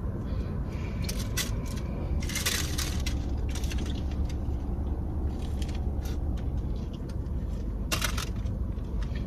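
A paper food wrapper crinkles as it is pulled back from a chalupa, along with crackly bites into it. The crackling comes in clusters over the first few seconds and again near the end, over a steady low hum.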